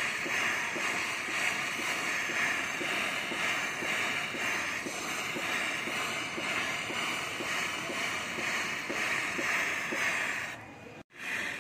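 Gas torch flame hissing steadily, with a brief dropout about eleven seconds in.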